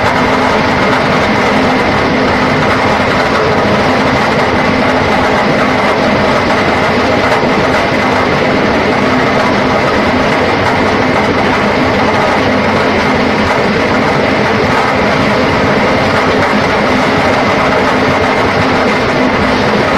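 Horizontal concrete pipe machine running: the steel pipe mould spins on its shaft as concrete is formed inside it. The result is a loud, steady mechanical din with a constant hum.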